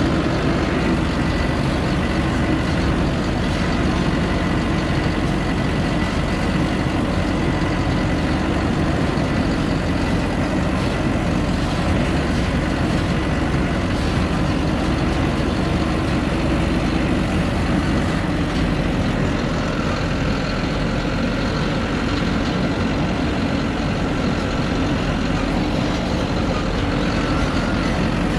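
Truck engine running steadily as the truck drives along a rough dirt track, heard from on top of the cab.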